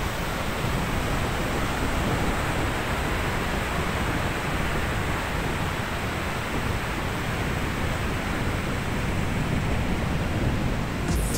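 Steady rushing noise of a fast white-water mountain river, mixed with wind on the microphone.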